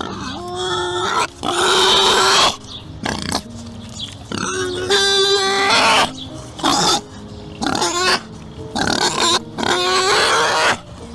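An animal calling again and again: a series of loud, harsh cries, each a second or less long, some with a clear pitch, with short pauses between them.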